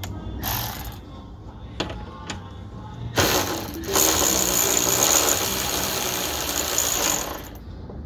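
Cordless power ratchet unscrewing a fastener inside a car door: a brief burst about half a second in and a couple of clicks, then a steady run of about four seconds from about three seconds in as the screw spins out.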